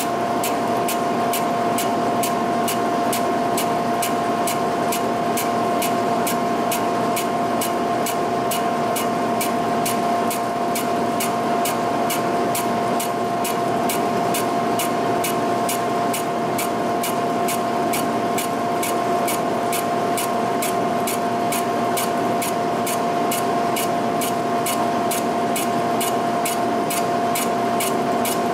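Giddings & Lewis horizontal boring mill running with a steady whine while a boring bar back-faces the edge of a machine way. The single-point cutter ticks regularly, about two to three times a second.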